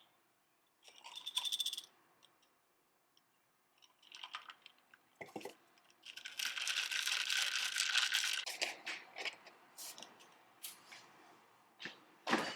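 Small objects being handled: scattered clicks and knocks, a short rattle about a second in, and a longer rustling noise from about six to eight and a half seconds.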